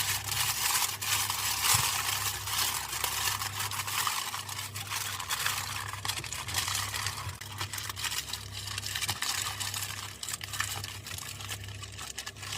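Aluminum foil crinkling and crackling as it is folded and wrapped around a packet of vegetables, busiest in the first half and thinning out toward the end.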